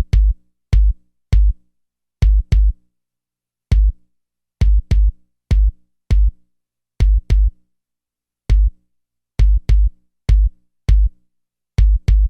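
50 Hz bass test track: short electronic bass-drum hits tuned to about 50 Hz, in an uneven drum-machine pattern that often falls in quick pairs, each hit starting with a sharp click. The beat stops at the very end.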